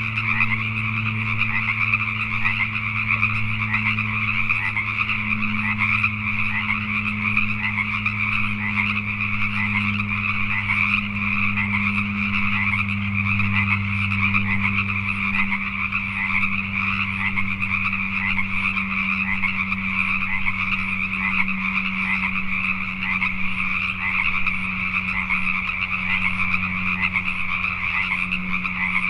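A dense night chorus of Pacific tree frogs (Pacific chorus frogs), many calling at once in a continuous overlapping croaking, with a steady low hum underneath.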